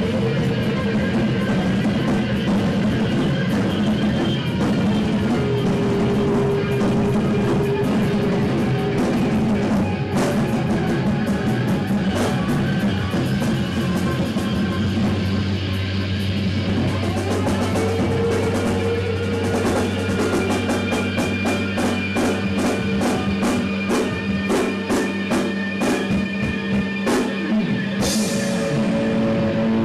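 Live band playing amplified music on drum kit and guitar, with sustained held notes. The drumming grows into rapid, dense hits over the second half, and a cymbal crash comes near the end.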